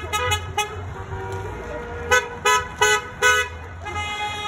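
Car horns honking as cars pass: a few quick taps in the first second, then four louder short honks in a fast series a little after halfway, and a longer honk near the end, over the low running of a passing car.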